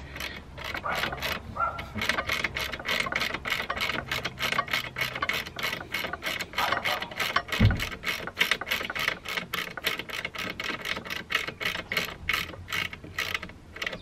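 Hand ratchet clicking steadily, about four clicks a second, as it turns a bolt on a motorcycle's rear brake caliper. One low thump a little past halfway.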